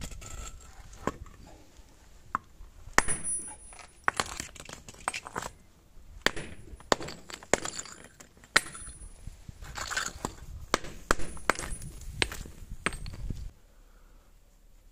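Hammer knocking a ceramic crucible, cracking it and breaking it off the cast wootz steel ingot inside, with shards clinking and clattering. The knocks are sharp and irregular, and they stop abruptly about a second and a half before the end.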